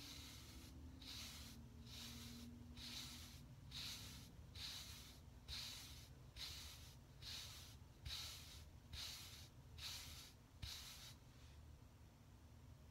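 Faint, steady brush strokes through short waved hair: about thirteen swishes, a little more than one a second, stopping about eleven seconds in.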